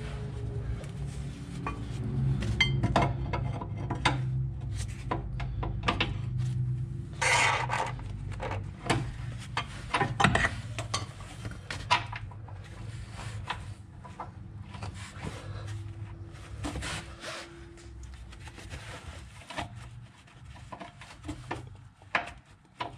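Irregular metallic clinks, scrapes and knocks of hand tools and a bolt being worked out of a van's front lower suspension arm, with a few louder knocks in the middle, over a low steady hum.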